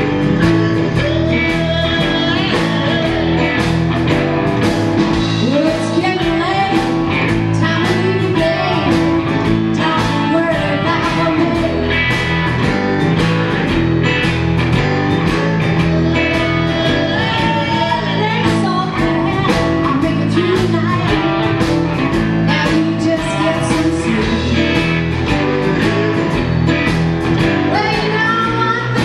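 Live blues band playing: electric guitar, electric bass, drums and keyboard, with singing over it and a steady drum beat.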